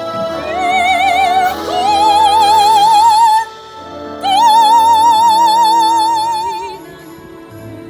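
Operatic soprano singing an aria with wide vibrato over instrumental accompaniment. She rises into a long high note, breaks off briefly about halfway, then holds another long high note before the accompaniment carries on alone near the end.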